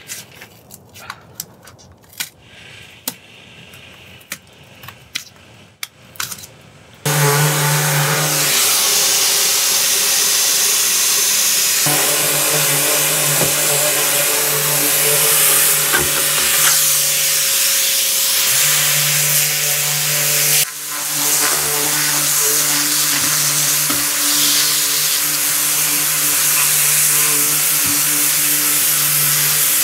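A hand scraper clicks and scrapes against dried spray foam on a window frame. About seven seconds in, an electric sander with a dust-extraction vacuum hose starts up and runs loudly and steadily as it grinds the foam off the trim. Its lower hum drops out twice for a few seconds while the hiss carries on.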